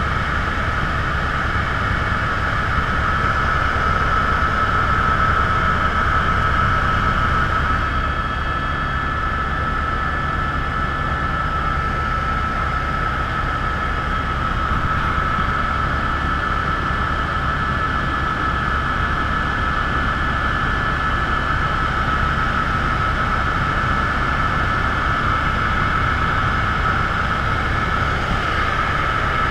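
Helicopter cabin interior noise: a steady low drone of rotor and engine with a constant high whine over it, unchanging throughout.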